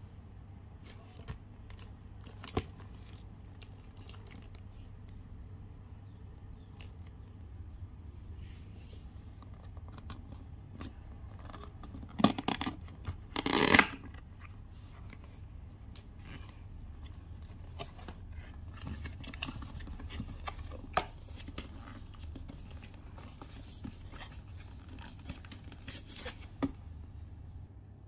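Cellophane shrink-wrap being torn and pulled off a cardboard perfume box, with a loud ripping about halfway through, amid crinkling and the rustle and clicks of the cardboard packaging being handled and opened.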